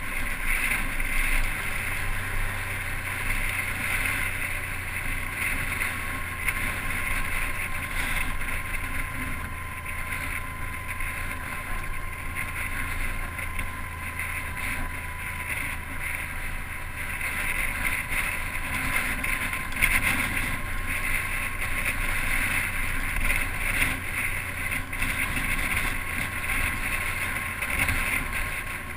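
A motorcycle in motion heard from a camera mounted on the bike: steady rushing wind noise over the microphone with the engine running underneath as a low hum.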